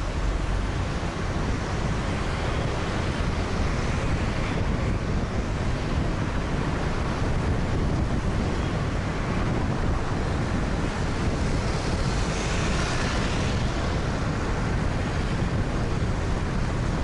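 Steady road and traffic noise with wind rushing over the microphone while riding in a moving vehicle, with a brief swell of hiss about two-thirds of the way through.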